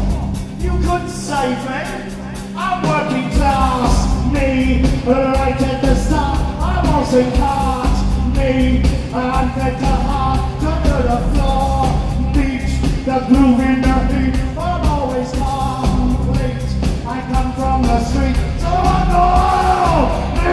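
Live post-punk band playing: a male lead vocal, half sung and half shouted, over drums, guitar and heavy bass. The deepest bass drops away for a couple of seconds and comes back in about three seconds in.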